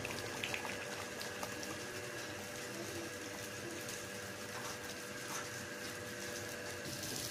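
Beef and potato curry simmering in a pot on the stove: a soft, steady bubbling hiss with faint crackles and a faint steady hum underneath.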